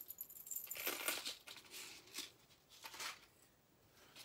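Handling noise as jewelry pieces are moved about: a few short rustles and clicks, the strongest about a second in and near three seconds in.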